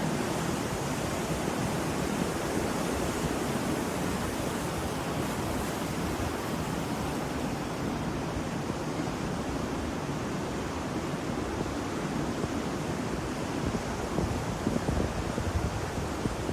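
Ocean waves: a steady rush of surf, its hiss easing a little about halfway through.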